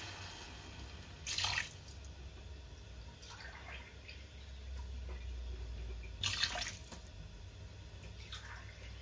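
Saucepan of rice, chorizo and freshly added water heating on the hob, bubbling and popping softly, with two brief louder sizzling bursts. A low steady hum runs underneath.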